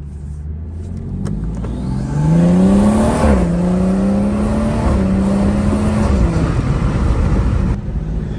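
Tuned BMW 340i's turbocharged 3.0-litre inline-six accelerating hard, heard from inside the cabin. The engine note climbs, drops at an upshift about three seconds in, climbs again and holds, then drops once more about six seconds in.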